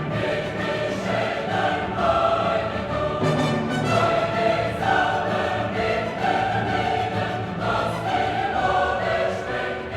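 Classical choral music: a choir singing held notes over an orchestra.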